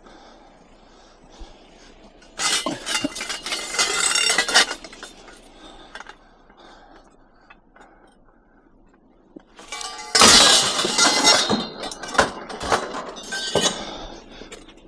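Scrap metal clattering and clanking as pieces are thrown onto a load of scrap: two loud crashes of jangling metal, one about two seconds in and one about ten seconds in, then a few smaller clanks.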